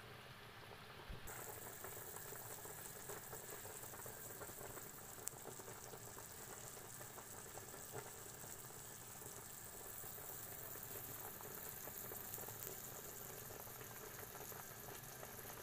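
Pork trotter broth (nilaga) boiling steadily in a large pot: a soft, continuous bubbling hiss with a few light pops.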